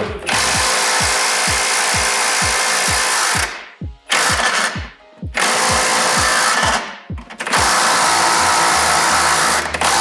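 A handheld power tool running in long bursts while undercarriage fasteners are undone, with short breaks about three and a half, five and seven seconds in. A steady thumping music beat runs underneath.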